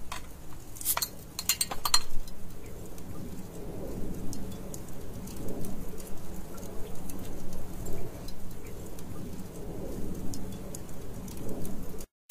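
A few sharp clinks of metal on a glass beer bottle about one to two seconds in, a bottle being handled and opened, then a faint, steady low background noise.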